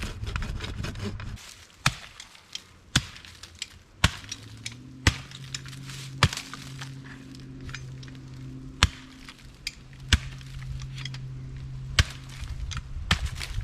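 Sharvol survival shovel's stainless steel blade chopping hard into wood, sharp blows about once a second. It is being beaten to test whether it holds up with gear stored in its aluminium handle. A low steady hum sits under the middle of the run.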